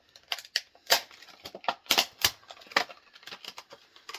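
Saw chain being handled: irregular metallic clicks and clacks as the links knock together, about a dozen sharp ones.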